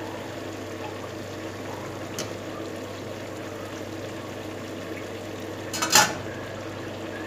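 Sliced potatoes, onion and pepper bubbling in olive oil in a frying pan, with a low steady hum underneath and a small tap about two seconds in. About six seconds in, a stainless steel lid clanks down onto the pan, the loudest sound.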